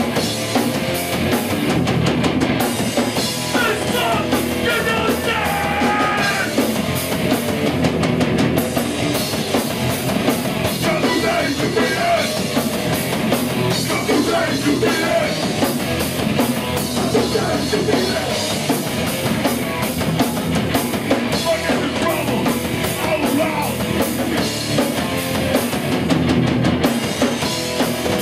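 Hardcore punk band playing a song live on electric guitars, bass and drum kit.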